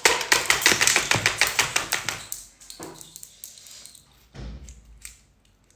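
Fast run of clicks and rattles as food pieces are stripped off a bamboo skewer by hand, lasting about two seconds, then a few scattered taps and a dull thump near the end.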